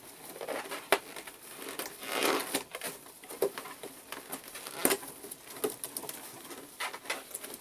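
Inflated balloons rubbing against a slit plastic matrix sheet as they are pulled up through its openings. Irregular plastic ticks and rustles, with a longer rub about two seconds in.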